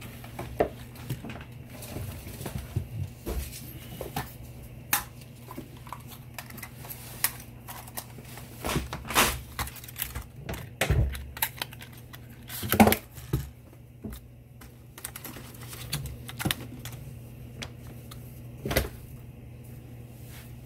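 Scattered clicks and knocks of a DJI Mini 2 drone's plastic body being handled: its buttons pressed, the aircraft turned over and its folding arms moved, over a low steady hum. The sharpest knocks come about 9, 13 and 19 seconds in.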